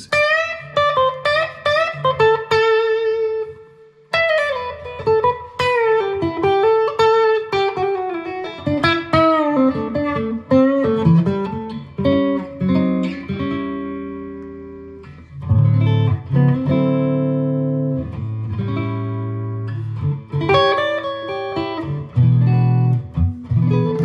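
Latitude Lark Telecaster-style solid-body electric guitar played through a Fender GTX100 amp on its neck pickup, singing single-note lead lines. Bent and wavering notes open the passage, then a run steps downward, and from about two-thirds of the way in lower, louder notes and chords take over.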